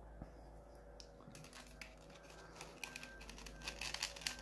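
Faint small clicks and rustling from hands working a plastic action figure with a satin cape, pulling and pressing at its neck to swap the head. The clicking starts about a second and a half in.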